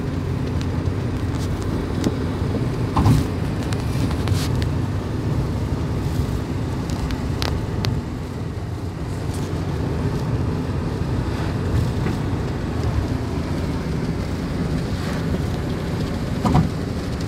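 Steady low rumble of tyre and engine noise inside a Hyundai car's cabin at cruising speed. Two brief louder knocks, about three seconds in and near the end.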